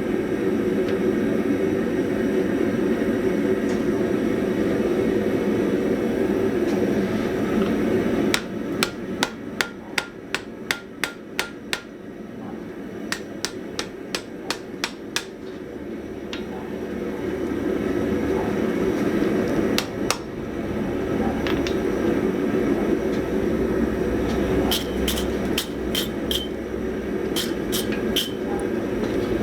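Steady rush of a forge for the first eight seconds, then a blacksmith's hammer striking hot steel on the anvil in quick runs of about two blows a second. This is the hammering of a forge-weld attempt, setting a welded collar onto a steel shank. The forge rush comes back, and a few later blows ring out near the end.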